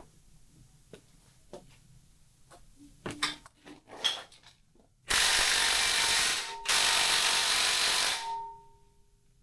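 Cordless impact driver hammering on a bolt in two bursts of about a second and a half each, its motor winding down just after the second; before them, a few light clicks and knocks of tools on metal.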